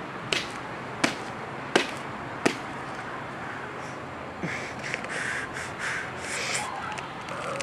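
Husked young coconut struck against a concrete curb edge, four sharp knocks about 0.7 s apart. Then a few seconds of softer rasping and scraping as the fibrous husk is pried and torn open.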